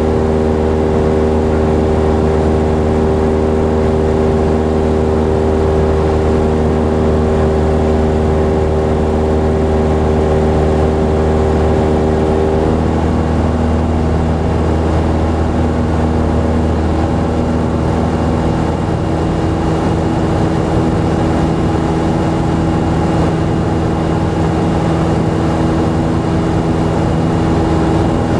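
Light aircraft's engine and propeller droning steadily, heard from inside the cockpit in cruise flight; the pitch of the hum shifts slightly about halfway through.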